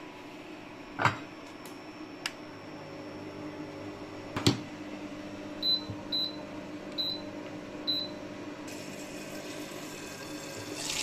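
Portable induction hob beeping four short, high beeps as its power knob is turned through the heat settings, over the steady low hum of the hob running. Two sharp knocks come earlier, the louder one about four and a half seconds in, and a hiss starts near the end and grows loud.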